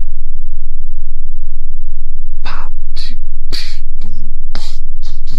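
A loud, steady low electrical hum throughout, and from about halfway a run of short, breathy bursts of a person's voice, like gasps or whispered syllables.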